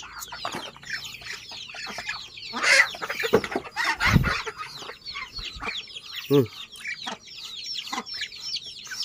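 A brood of kampung chicks peeping constantly in quick, high, downward-sliding chirps. Feed rustles and thumps into a plastic tray and is stirred by hand about three to four seconds in. A single lower cluck comes a little past six seconds.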